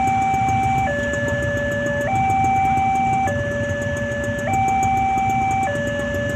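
Railway level-crossing warning siren sounding a two-tone hi-lo alarm, switching between a higher and a lower tone about every 1.2 seconds, over a steady low rumble.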